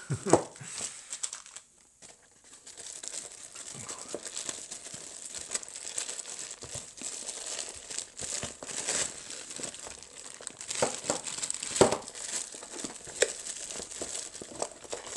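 Plastic bags crinkling and rustling steadily as they are handled, with a short lull about a second in and a few sharper crackles near the end.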